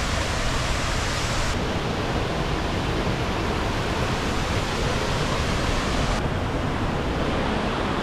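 Steady, loud rushing of a large waterfall heard up close.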